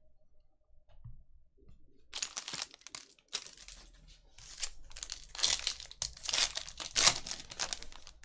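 Foil trading-card pack wrapper being torn open and crinkled, in a series of rustling rips starting about two seconds in.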